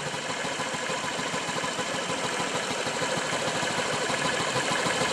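2009 Honda Metropolitan CHF50 scooter's 49cc four-stroke single-cylinder engine idling steadily on freshly changed oil, growing slightly louder toward the end.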